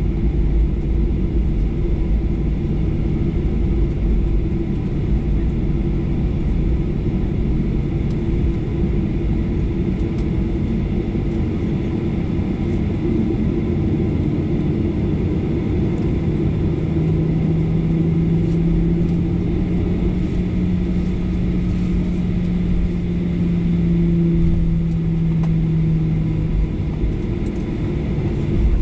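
Cabin noise of a Boeing 737-800 taxiing: a steady low rumble from its CFM56 engines at taxi power. A louder hum comes in a little past halfway and fades out near the end.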